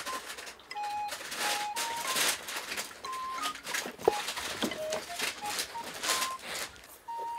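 Irregular rustling and scratching as a kitten claws, bites and rolls against a black hose on a tatami mat, with a sharp click about four seconds in. A light background tune of short single notes plays throughout.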